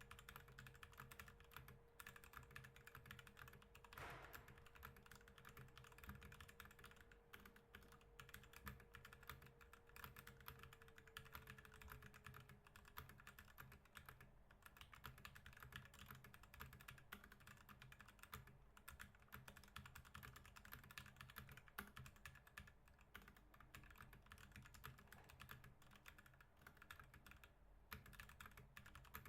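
Fast, continuous typing on a computer keyboard, the keystrokes clicking faintly. A faint steady hum sits underneath and fades out about twelve seconds in.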